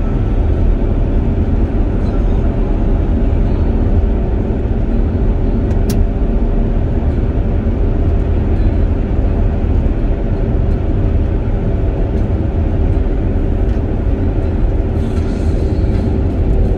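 Steady road and engine rumble of a car driving at highway speed on a snow-packed road, heard from inside the cabin, with a faint steady hum throughout. There is one brief sharp click about six seconds in, and a little more hiss near the end.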